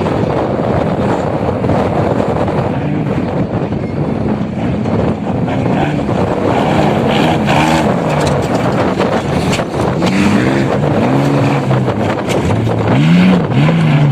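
Small off-road motorcycle engine revving up and down again and again, over a steady rush of wind and riding noise.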